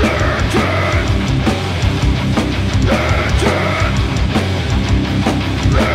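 Doom metal band playing live: heavily distorted guitars, bass and drums, with harsh shouted vocals coming in twice.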